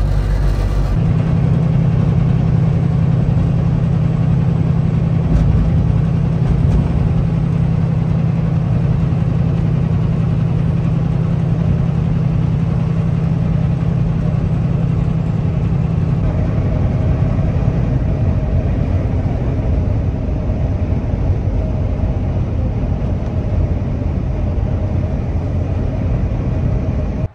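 Semi truck travelling down the road: a steady, loud low engine and road drone, with a higher steady hum joining about two-thirds of the way through.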